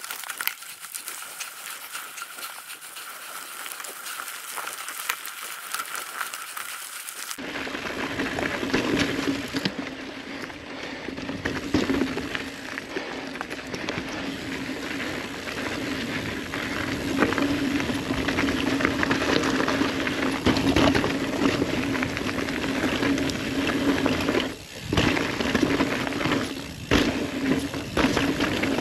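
Ibis Ripley mountain bike rolling fast down a dirt singletrack: tyres crunching over dirt and leaves and the bike rattling over bumps, with wind rushing over the camera's microphone. The rush and rumble get much louder about seven seconds in and stay steady with small knocks, dipping briefly twice near the end.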